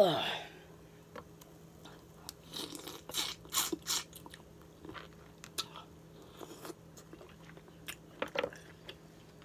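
Close-up mouth sounds of eating green-lipped mussels: a mussel sucked off its shell and chewed, with wet clicks and smacking in two clusters. A short, loud sound sliding down in pitch opens it.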